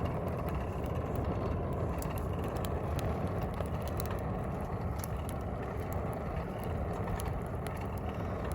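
Juniper-wood fire in a forge burning with a steady low rush, with frequent small crackles and pops scattered throughout.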